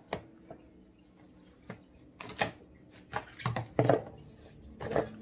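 Scattered knocks and clicks of Shop-Vac parts being handled during assembly, irregular, with the loudest knock a little past the middle.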